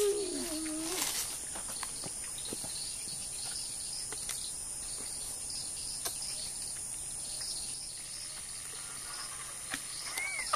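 Insects chirring steadily at a high pitch, with a small splash near the end as a traíra fish is dropped into shallow water.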